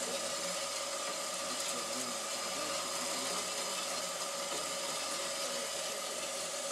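Horizontal metal-cutting band saw running with its blade partway through a metal bar held in the vise: a steady, even running sound with a constant whine.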